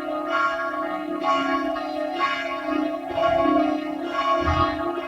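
Church bells ringing together in a full peal, with a fresh strike about once a second over the ongoing hum of the bells.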